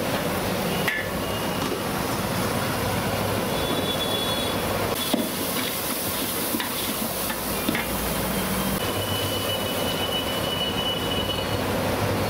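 Onions frying in oil in a large aluminium pot over a gas burner: a steady sizzle and burner noise, with a few sharp knocks of utensils against the pot.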